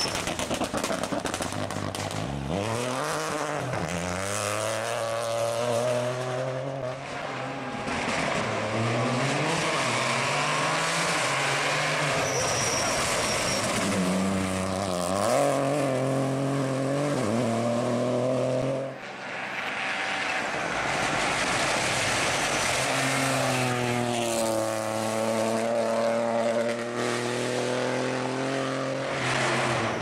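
Peugeot rally car's engine revving hard as it drives past, its pitch climbing with each acceleration and dropping back at gear changes and lifts, several times over.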